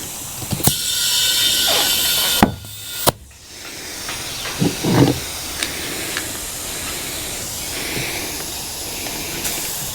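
A loud burst of hissing air lasting about two seconds, cut off by a sharp click, with a second click shortly after. A fainter steady hiss and a few light knocks follow.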